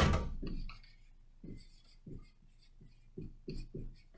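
Dry-erase marker writing on a whiteboard: a sharp knock at the very start, then a run of short marker strokes, several a second.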